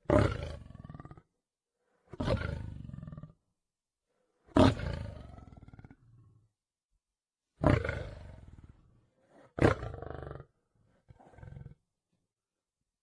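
Big cat roaring: about six separate roars, each starting loud and trailing off, with silences between them.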